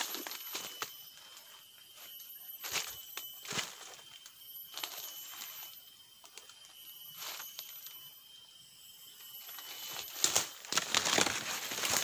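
Footsteps crunching and rustling through dry forest leaf litter and undergrowth, a few scattered steps at first, then denser and louder from about ten seconds in.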